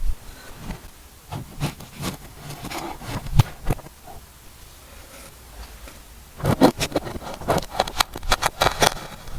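Kinetic sand being worked, giving a run of short, irregular crackles: a scattered group in the first few seconds, a quiet pause, then a denser, louder group near the end.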